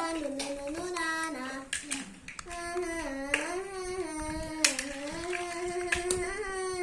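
A child singing a wordless tune in long, wavering held notes, with a few sharp clicks in between.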